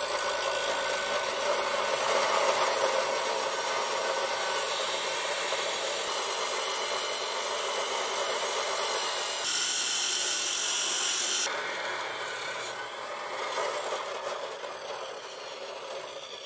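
Power tool cutting through metal exhaust pipe, a steady grinding, sawing noise that runs on continuously. It changes abruptly about ten seconds in and again a couple of seconds later.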